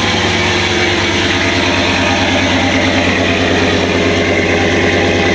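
Lifted 2014 Chevy Silverado's engine with an aftermarket cam idling through its exhaust, a steady pulsing idle that does not rev up or down; the cam gives it its choppy lope.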